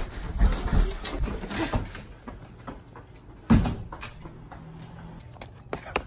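Hurried footsteps and knocks as someone runs through a house and out the open front door, with a loud knock at the start and another about three and a half seconds in. A steady high whine runs underneath and stops about five seconds in.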